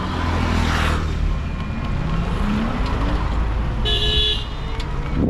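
Steady road and wind rumble from riding in an open electric rickshaw (toto), with a rising whine in the middle and one short vehicle horn honk about four seconds in.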